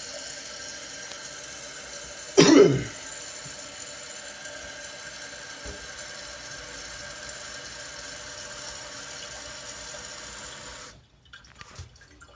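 Toilet tank fill valve hissing as the tank refills after a flush, then shutting off suddenly near the end as the tank reaches full. A single brief loud burst stands out about two and a half seconds in.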